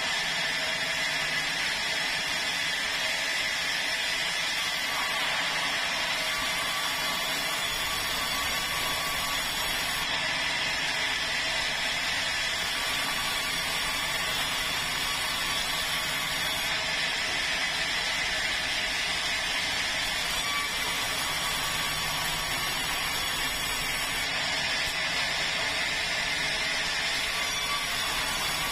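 Sawmill band saw running steadily as it cuts boards from a large red meranti log, a continuous machine whine with no pauses.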